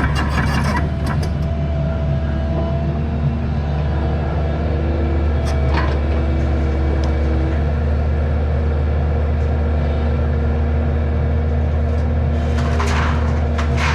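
Excavator's diesel engine running steadily at an even, low idle as it warms up. Near the end a rattling clatter joins in.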